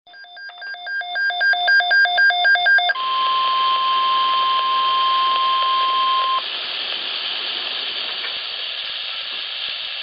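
Midland WR-100 weather radio alarm for a tornado watch: rapid electronic beeping, about four beeps a second and growing louder, for about three seconds. The radio then opens the NOAA Weather Radio broadcast, where a steady single-pitch warning alarm tone runs until about six seconds in and cuts off, leaving a hiss of radio static.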